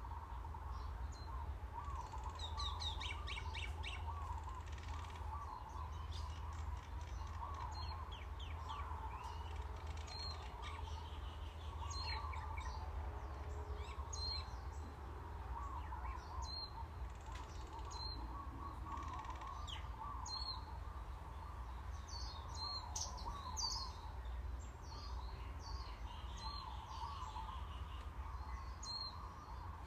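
Birds chirping: a short high chirp repeats about every two seconds over recurring warbling calls, with a few quick falling trills near the start. A steady low hum runs underneath.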